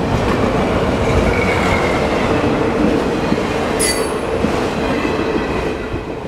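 Freight train's autorack cars rolling past on steel wheels: a steady rumble with faint wheel squeals and a brief high screech about four seconds in. The sound starts to fade near the end as the last car goes by.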